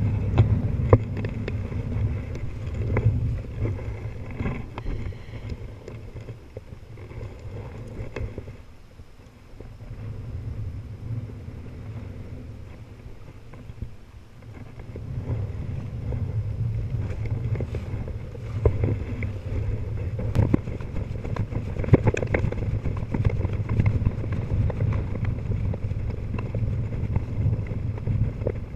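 Wind buffeting the microphone over choppy shallow water lapping and splashing close by, with scattered small splashes and knocks. The wind eases off for several seconds in the middle, then picks up again.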